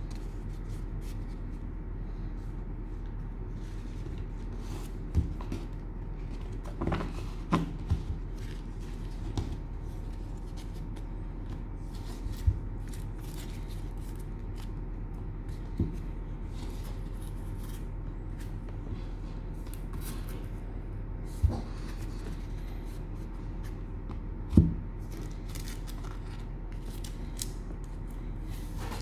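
Trading cards and their packaging being handled: scattered light clicks and taps, about a dozen spread unevenly, over a steady low electrical hum.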